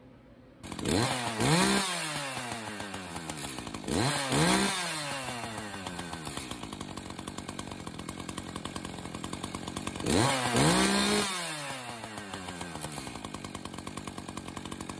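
Echo CS-590 two-stroke chainsaw running with its bar and chain removed, revved up three times and dropping back to idle in between. It is a test run to see whether the rebuilt oiler pumps bar oil through its new lines.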